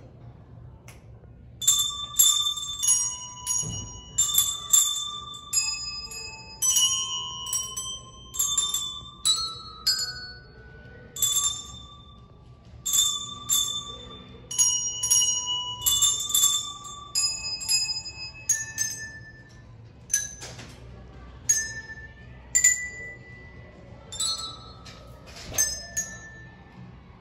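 A group of children playing a simple tune on coloured handbells, one bell at a time, each note struck and left to ring out. The notes change pitch from bell to bell, with a short gap or a slight overlap between them.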